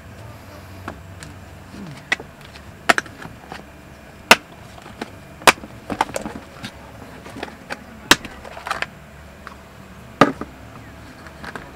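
Hard plastic clicks and knocks from a clear six-egg camping case being unlatched and its lid lifted off: about eight sharp snaps spread over several seconds, the loudest about five and a half seconds in.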